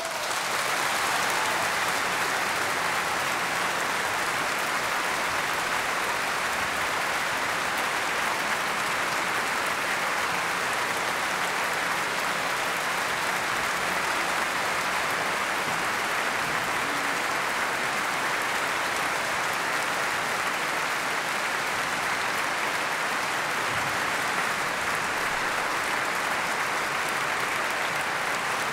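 Concert audience applause, breaking out at once and holding steady.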